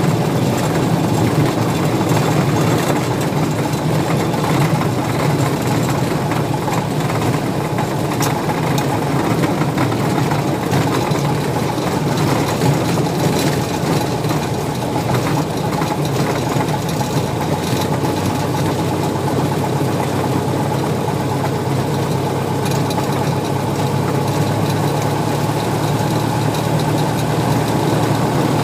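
Small plane's engine running at a steady drone with no change in pitch or loudness.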